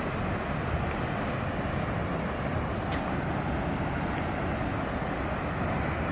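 Steady, even roar of a tall waterfall plunging into its pool, with one faint click about three seconds in.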